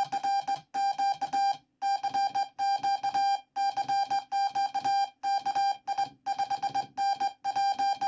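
Morse code sidetone from a code practice oscillator: a steady beep switched on and off in short dots and longer dashes, sent by hand on a WWII J-38 straight key.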